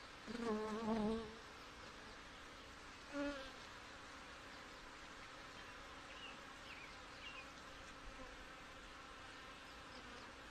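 Honeybees over an open hive humming steadily. A bee flies close past the microphone twice with a louder wavering buzz: once about half a second in, lasting about a second, and briefly again about three seconds in.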